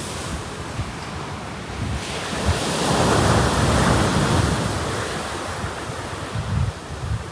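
Sea waves washing onto a beach, one surge swelling about three seconds in and then fading. Wind buffets the microphone with a low rumble.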